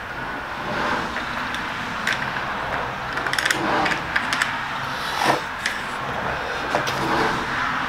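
Small metal parts clicking and scraping against an aluminium track-saw rail as grub screws and a connector piece are fitted into its channel, a few separate clicks over a steady background noise.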